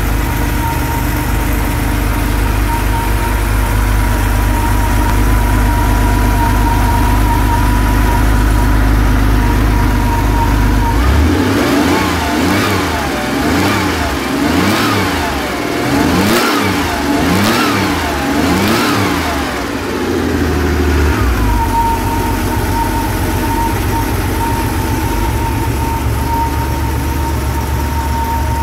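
1983 Porsche 911SC's air-cooled flat-six idling steadily. About eleven seconds in it is revved up and down several times for roughly ten seconds, then settles back to a steady idle.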